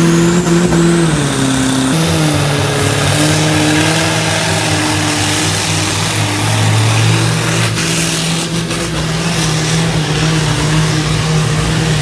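A pulling tractor's engine running hard at high, steady revs under load as it drags the sled down the track. Its pitch dips briefly about a second in, then holds steady. A faint high whistle rises over the first couple of seconds.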